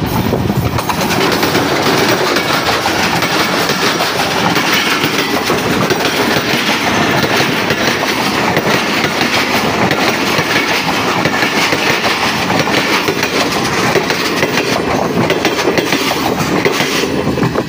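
A diesel-hauled passenger train passing close by: the locomotive goes by in the first seconds, then a long line of coaches rolls past with a loud, steady rumble and the clatter of wheels on the rails, easing off right at the end.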